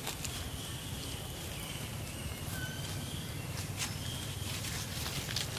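Outdoor ambience over ground littered with dry leaves: a steady low rumble, a few faint thin high calls, and brief crackles of dry leaves a few times.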